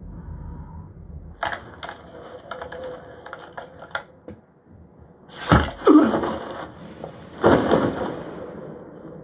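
Film-battle gunfire from a heavy sniper rifle, played back through a home-theater speaker system. A sharp crack about a second and a half in is followed by a spell of crackling. Then come two loud shots with long echoing tails, about two seconds apart, past the middle.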